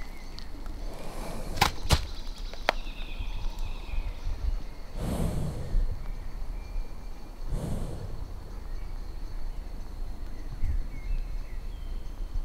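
A horse blowing out through its nostrils close to the microphone, two heavy breaths about five and seven and a half seconds in. A few sharp clicks come near the start, with faint bird chirps in the background.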